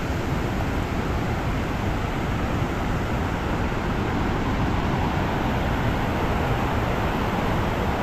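Shallow stream rushing in whitewater over flat rock ledges: a steady, even rush of water.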